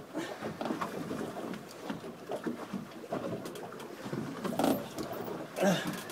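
A block-and-tackle hoist being hauled by hand under the heavy load of a giant bluefin tuna: irregular low sounds of rope, blocks and effort, with a louder scuffing burst near the end.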